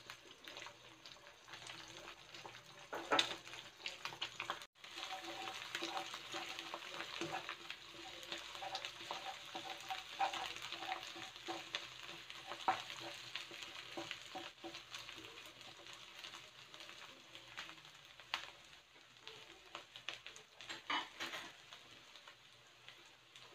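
Eggs sizzling in butter and oil in a nonstick wok, with a spatula scraping and knocking against the pan now and then as it breaks up and stirs them.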